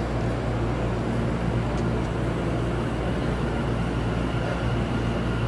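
Electric commuter train approaching through the tunnel into an underground station, a steady low rumble with a faint thin high tone coming in during the second half.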